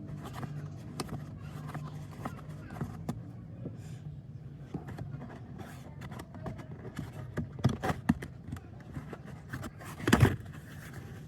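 Hands working on a car's cabin air filter housing and trim: irregular plastic clicks and scrapes, with a few louder knocks about eight seconds in and a single loudest thump near the end.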